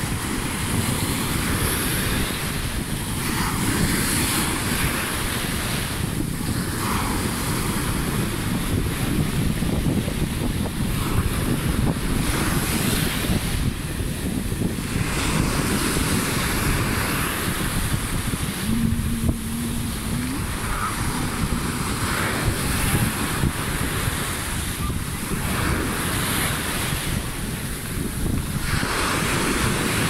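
Heavy Mediterranean surf breaking on the beach, with a wash of foam surging in every few seconds. The sea is still rough after a night of strong wind. Wind buffets the microphone.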